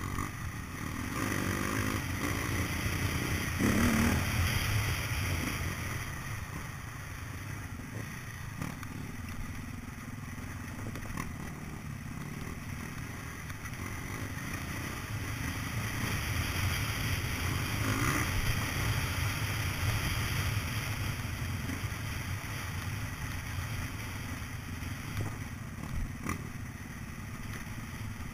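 Off-road dirt bike engine heard from a camera mounted on the bike, the throttle opening and easing off as it rides a rough trail, louder about four seconds in and again past the middle, with clatter and knocks from the rocky ground.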